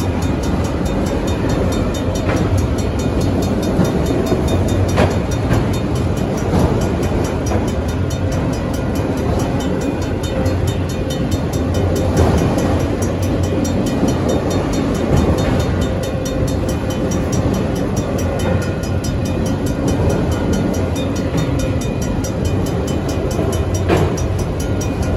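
Freight train of autorack cars rolling through a grade crossing, its wheels rumbling and clacking steadily on the rails, with a few sharp clanks. Over it the crossing's RACO mechanical bells ring in a fast, unbroken rhythm.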